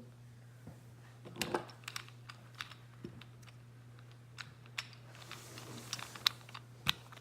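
Scattered light plastic clicks and taps from a gear cube puzzle being handled. They come more often in the second half, over a faint steady low hum.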